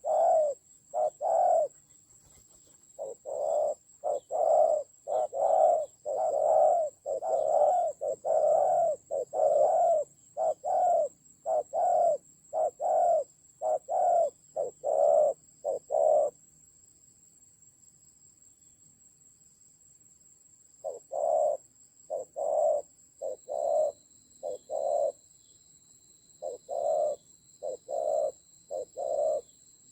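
Spotted dove cooing in quick runs of short, low, evenly spaced notes: a long run, a pause of a few seconds, then two shorter runs. A steady thin high-pitched insect-like whine runs underneath, and a second lower whine joins it near the end.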